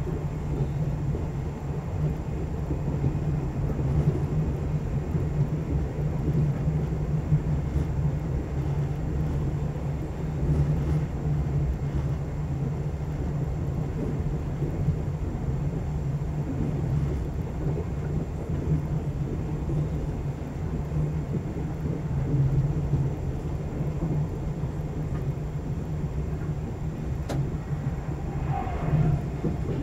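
Steady rumble of a sleeper express coach running over the rails, heard from inside the cabin. Near the end a level-crossing warning bell passes briefly, its pitch bending downward.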